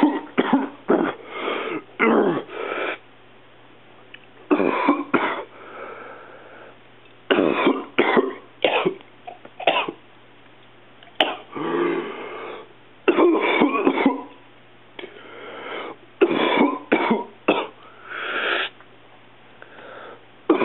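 A person coughing in repeated fits, a cluster every few seconds, with throat clearing between them, over a faint low steady hum.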